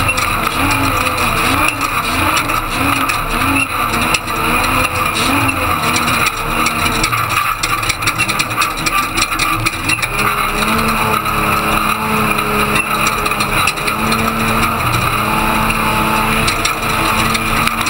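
Ford Ranger desert race truck running hard over rough dirt, heard from on board, with a constant rattle and tyre and road noise. The engine's pitch rises and falls again and again through the first few seconds, then holds steadier from about halfway through.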